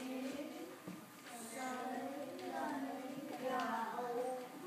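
A group of young children singing a children's song in Cantonese together, with held notes.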